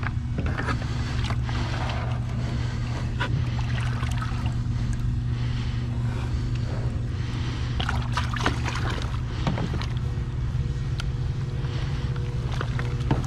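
Water sloshing and scattered knocks against an aluminium rowboat, over a steady low hum.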